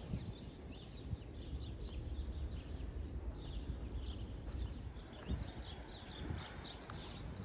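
Small birds chirping, many short quick calls one after another, over a low outdoor rumble of wind.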